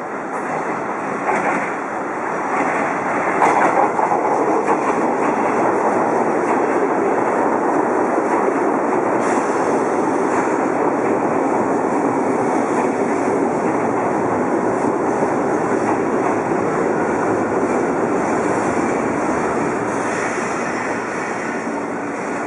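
JR Kyushu 103 series 1500 electric train pulling into the station, its wheels and motors running close past on the rails, with a few clicks from the track in the first few seconds. The noise eases off over the last few seconds as the train slows.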